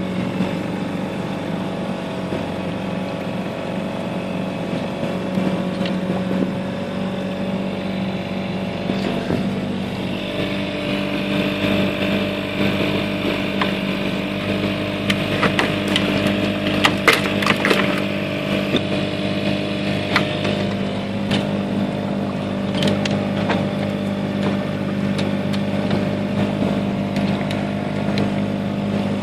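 A small boat's engine running steadily at low cruising speed, a constant even hum whose tone shifts slightly about a third of the way through. A run of sharp clicks and knocks sounds about halfway through.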